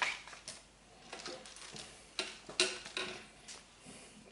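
Several light, irregular clicks and taps of small hard parts being handled by hand.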